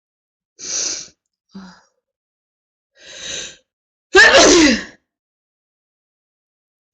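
A woman sneezing during a sneezing fit. Short, breathy sounds come about a second in and again around three seconds in. About four seconds in comes one loud, voiced sneeze that falls in pitch.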